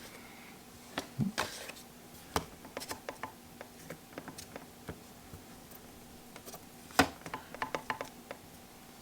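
Hands handling a phone and a plastic squeegee on a work surface while smoothing a screen protector. There are scattered light clicks and taps, a brief rub about a second in, and a sharper click about seven seconds in.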